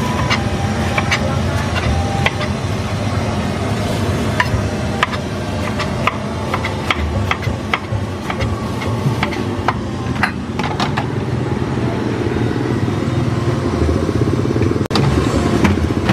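A large kitchen knife chopping cabbage on a wooden cutting board: sharp irregular knocks, thickest in the middle, over a steady low rumble of road traffic.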